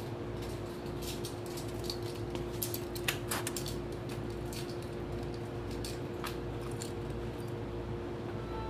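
Inside a Keikyu New 1000 series railcar standing still: a steady electrical hum from the car's equipment, with scattered light clicks and rattles. Near the end a steady high tone comes in.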